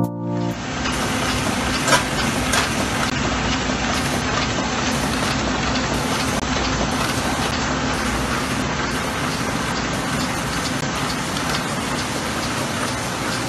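Komori Lithrone S29 four-colour sheetfed offset press running, a steady mechanical noise from the feeder and printing units, with a sharper knock about two seconds in.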